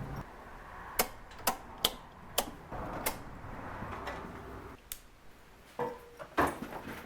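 A series of about eight sharp, irregularly spaced clicks and knocks over a low background hum, the loudest one near the end.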